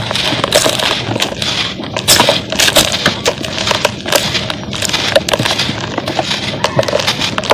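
Dry cement clumps crushed and crumbled by hand: a dense, continuous crunching and crackling with many sharp snaps, along with loose powder pouring and hissing.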